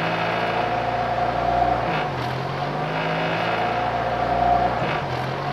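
AE86 Levin's late-1992 4A-GE engine idling with hunting: the revs sag and recover twice in slow cycles, a few seconds apart. A vinyl-tape patch on a loose part has not cured the unstable idle.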